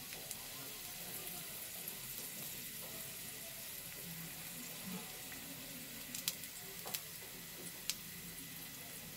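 Garlic cloves frying in hot mustard oil in a pan on a reduced flame: a quiet, steady sizzle with a few sharp crackles around six, seven and eight seconds in.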